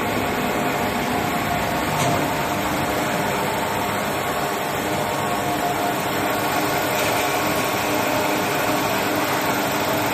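1969 OM TMD 25/35 vertical lathe running with both crossrail toolheads on automatic feed: a steady machine whir with a constant hum, and a light click about two seconds in.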